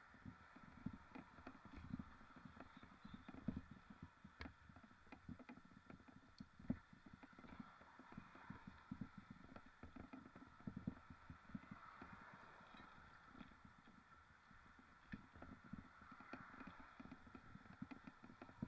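Faint, irregular knocking and rattling of a mountain bike ridden over rough ground, over a steady low hiss.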